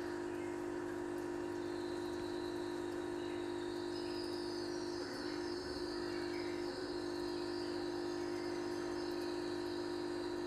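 A steady hum with one held low tone, unchanging in level throughout.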